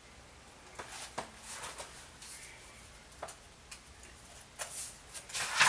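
Pages of a picture book being turned and handled: a scatter of soft paper rustles and light ticks, starting about a second in, with a few louder ones near the end.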